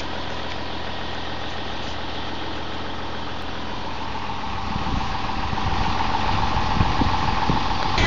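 Farm tractor's engine idling, then running louder about halfway through with a steady whine over it, heard from inside the cab.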